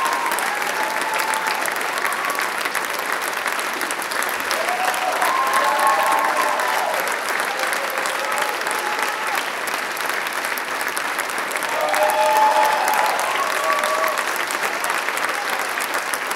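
Sustained applause from a theatre audience, with a few voices calling out over it about five seconds in and again about twelve seconds in.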